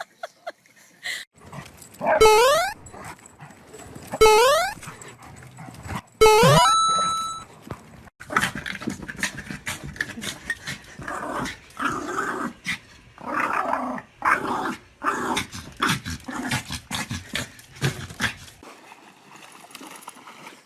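Dogs scuffling: three loud barks about two seconds apart, each falling in pitch, then a long run of quick, irregular growls and grumbles that stops near the end.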